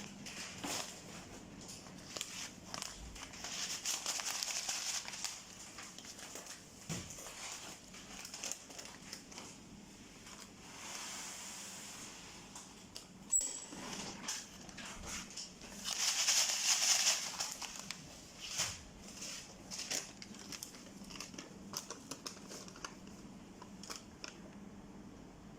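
Aluminium foil and metallized plastic bags crinkling as they are handled on a foot-pedal bag sealer, in two longer bursts. Scattered clicks come from the machine, and about 13 seconds in there is a sharp click with a brief high tone.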